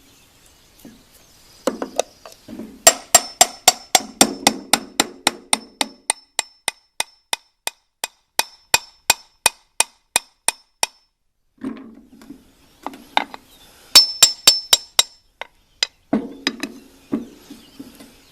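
Hammer tapping on the metal shaft and housing of a snowblower gearbox, working the shaft through to split the two halves: a steady run of sharp, ringing strikes about three a second for several seconds, then a pause and a quicker flurry of blows.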